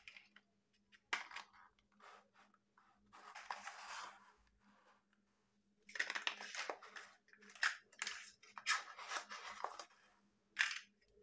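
Chunky hollow plastic building blocks clacking and rattling as they are handled and snapped together, in scattered bursts of clicks with a softer scraping rustle about three seconds in.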